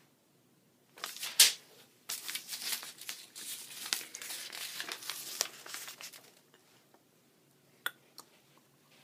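Sheets of lined notebook paper being crumpled and rustled by hand: a sharp crackle about a second in, then dense crinkling for about four seconds, and a single click near the end.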